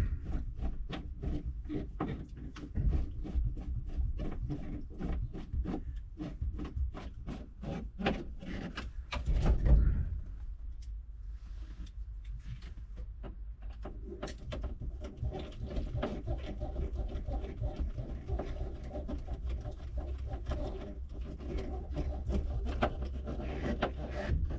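Screws being driven by hand into a van's dashboard bezel: a long run of rapid clicks, a louder knock about ten seconds in, then softer clicking.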